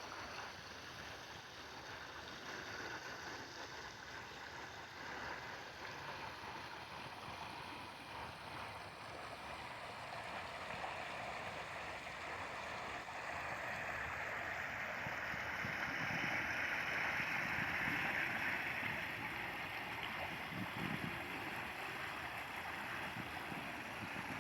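Running water rushing steadily, growing louder a little past halfway and easing slightly near the end.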